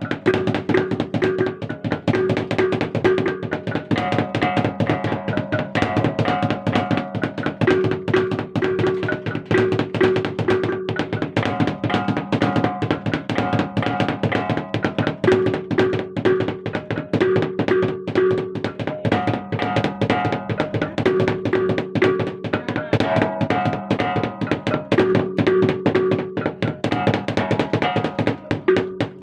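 Gendang drums and gongs of an East Flores ritual played together: fast, continuous drumming under gongs of several pitches struck in short repeating groups of three or four notes, the pattern cycling every couple of seconds.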